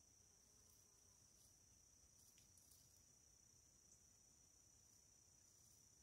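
Near silence with a faint, steady, high-pitched trilling of crickets and a few faint ticks in the middle.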